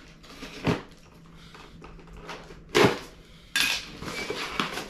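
A metal scraper jabbing and scraping at the taped end of a cardboard box, with two sharp knocks about a second in and near the middle, then a stretch of scraping and tearing of cardboard and tape as the flap is forced open.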